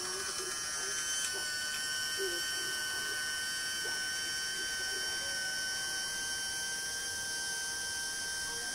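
Small electric water pump's motor running with a steady whine and hum, a higher tone coming in about a second in. It is straining without a good electrical connection.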